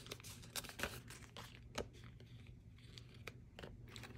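Soft rustling and crinkling of paper banknotes and a clear plastic binder pocket being handled, in short scattered bursts that are thickest in the first couple of seconds and thin out after.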